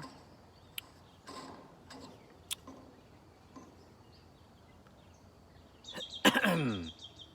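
A few faint clicks, then about six seconds in a man's short, loud vocal sound whose pitch falls steeply, like a throat clearing or a sighing exhale.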